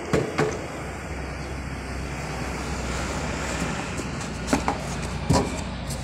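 A cardboard box being handled and shifted in a packing crate, with a few sharp knocks near the start and two more in the second half, over a steady low rumble.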